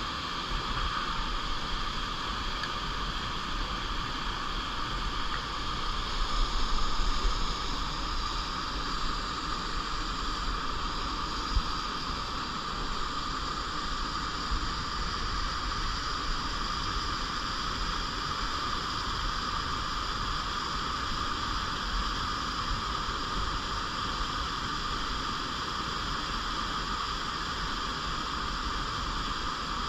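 Clear stream running: a steady rush of flowing water, briefly louder about six to seven seconds in.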